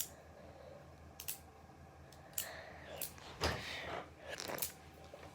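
Plastic fidget toys being handled: a sharp click at the start, a few light clicks about a second in, then several short scraping rustles in the second half.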